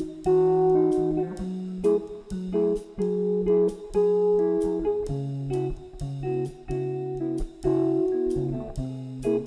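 Background music: a guitar picking and strumming notes with a steady rhythm.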